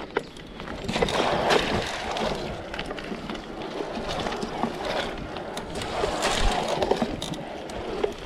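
Mountain bike tyres rolling through sloppy mud and shallow water, squelching and splashing, with frequent knocks and rattles from the bike over the rough ground.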